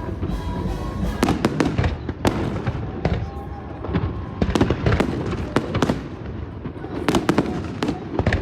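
Fireworks bursting overhead: a dense, irregular run of sharp bangs and crackles, with clusters of reports about a second in, around four to five seconds in, and again near the end.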